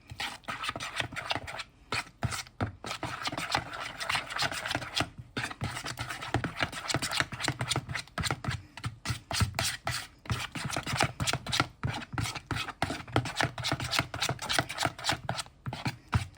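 A utensil stirring and scraping round a bowl of thick mayonnaise-based sauce with shredded red cabbage, in rapid, continuous strokes broken by a few short pauses.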